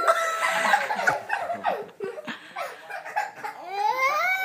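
A high-pitched, drawn-out wailing cry, then laughter, with the wail starting up again near the end.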